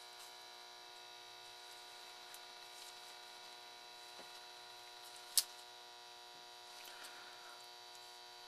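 Steady electrical hum with faint handling ticks and one sharp click about five and a half seconds in, from an electrolytic capacitor's leads being pushed through a circuit board and bent over.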